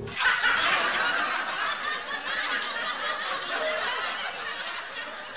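Canned crowd laughter, many people laughing and snickering together, starting suddenly and slowly fading.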